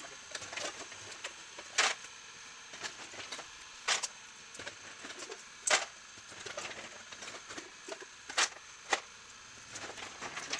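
Wood fuel crackling inside a homemade scrap-metal gasifier: sharp pops and snaps, the loudest about every two seconds, with fainter crackles between.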